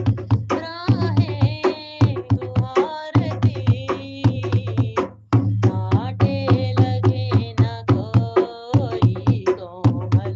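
Hindi devotional song (bhajan): a voice singing a melody over a regular beat of drum strikes and a steady deep bass, with a short break in the singing about halfway through.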